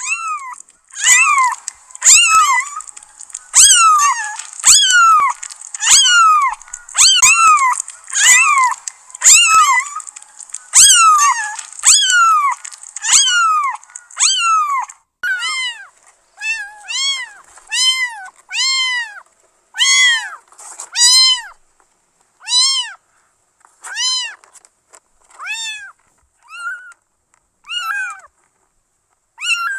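Kitten meowing, one high-pitched meow about every second, each rising and then falling in pitch. Through the first half a faint hiss and a click come with each meow; after that the meows are cleaner and spaced further apart.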